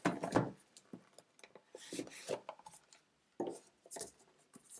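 Hands opening a small cardboard game box on a wooden table: the lid rubbing and scraping as it comes off, with light knocks and paper handling in short irregular bursts.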